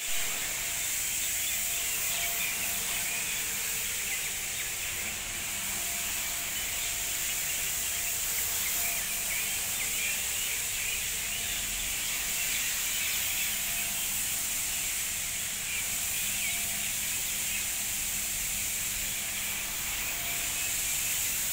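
Single-disc floor scrubbing machine running steadily, its rotating brush scrubbing a wet, soapy stone floor: an even hiss with a faint motor hum beneath.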